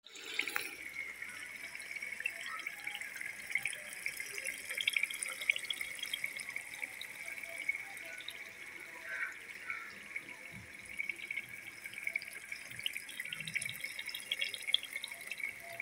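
Mutton karahi gravy sizzling and bubbling in oil in a metal karahi: a steady hiss with many small crackles and pops.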